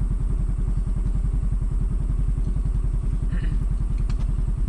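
Motor scooter engine running with a steady, rapid low throb.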